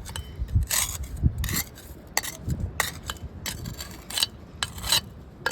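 Garden hoe scraping gritty soil under a patio paver: a quick, uneven series of short rasping strokes with a few hard knocks.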